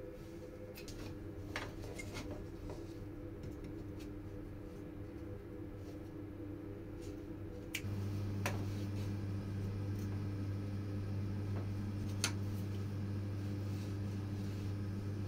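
A few light clicks and taps of thin wooden pieces being handled and fitted together on a workbench, over a steady low hum that gets louder about eight seconds in.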